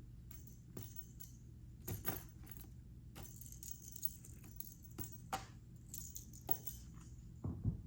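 A cat toy jingling and clicking as the cat bats and noses it, in irregular bursts of light metallic rattling.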